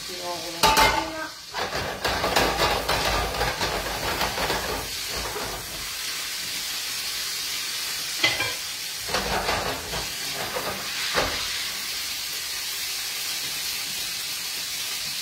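Food sizzling steadily in oil in an aluminium frying pan on a gas hob. Over it come pan and utensil clatter: a loud clank about a second in as a second pan is set on the grate, then more knocking and scraping a couple of seconds later and again around eight to eleven seconds in.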